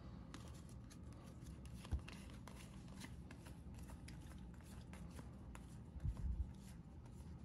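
Faint rustling and light clicking of Topps baseball cards being handled and slid through a pack, with a soft low thump about two seconds in and a few more around six seconds.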